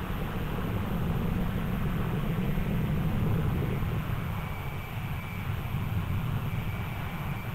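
Jet airliner engines running, a steady low rumble that swells a little over the first few seconds and then eases, with a faint high whine in the second half.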